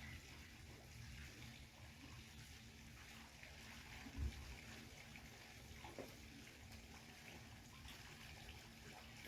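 Garden fountain, its water splashing and trickling faintly and steadily, with a brief low thump about four seconds in.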